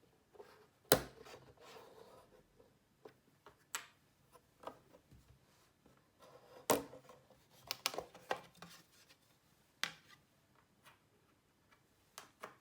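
Scattered clicks and knocks of small hard objects being handled on a work surface, with light rubbing between; the loudest knock comes about a second in and a quick cluster comes around two-thirds of the way through.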